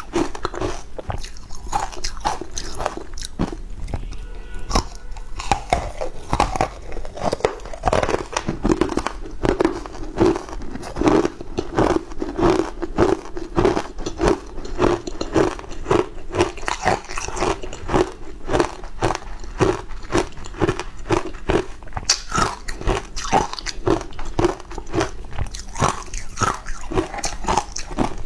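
Close-miked crunching and chewing of a crunchy, crumbly food, with dense crisp bites following each other several times a second.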